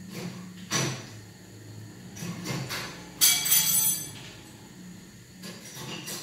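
Kitchen utensils knocking and clattering several times, with a louder ringing clink of metal cutlery on crockery about three seconds in, over a steady low hum.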